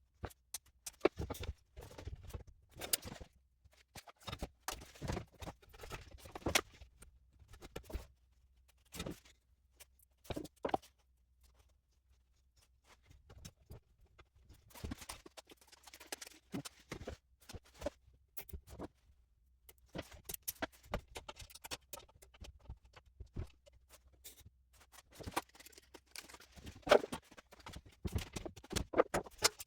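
Irregular clicks, taps and knocks of box-fan parts being handled and fitted together, with short pauses between bursts; the sharpest knock comes near the end.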